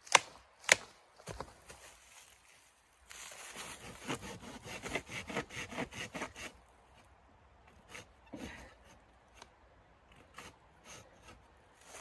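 Footsteps crunching on dry leaves and twigs at the start, then a hand saw cutting a dead tree branch in quick rhythmic strokes, about three a second, for about three seconds. Scattered crackles of the wood being handled follow.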